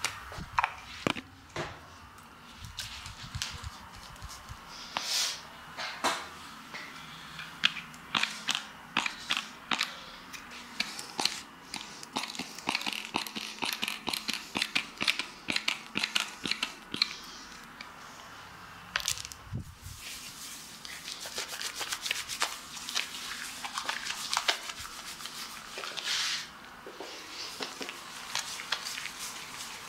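Shaving foam squirted from an aerosol can onto a bare chest, then hands working the lather over the skin: a run of close, crisp crackles, clicks and wet rubbing.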